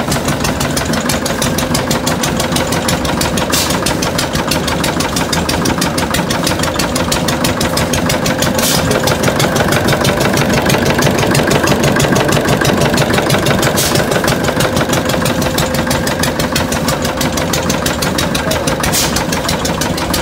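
Ruston & Hornsby VTO diesel engine of a generator set running steadily, its diesel knock beating fast and even.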